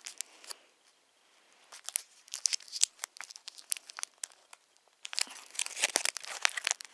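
Plastic packaging being torn open and crinkled by hand, in bursts of crackling. There is a short pause about a second in and another around four and a half seconds, and the crinkling is densest near the end.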